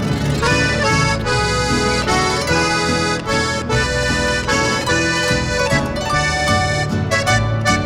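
Instrumental music: sustained melodic notes over a changing bass line.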